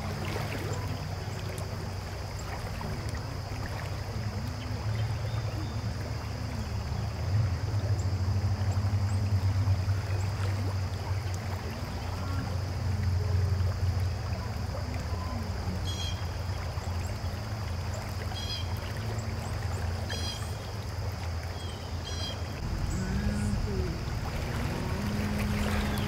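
Shallow river water flowing steadily over a rocky bed, with a strong low rumble under it. A few short high chirps come about two-thirds of the way through.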